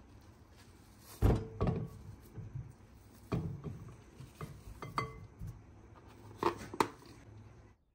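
A spoon scooping soft curd cheese out of a plastic tub into a glass bowl: irregular knocks and scrapes of spoon against tub and bowl, with louder clunks about a second in, twice around three and a half and five seconds, and a pair near the end.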